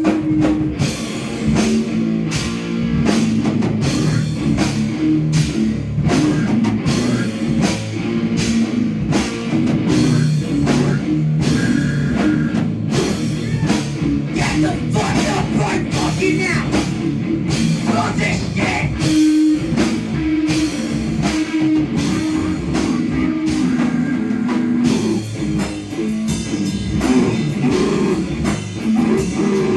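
Live heavy noise-rock band playing loud: held, distorted low guitar notes over fast, dense drum kit hits, with no break.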